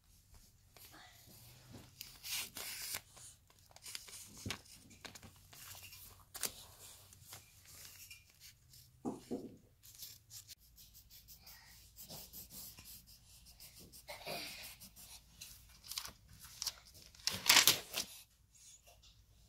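Pencil scratching on lined notebook paper in irregular strokes as a toddler scribbles, with the paper rustling as it is handled. About seventeen and a half seconds in there is a much louder rustle of the paper.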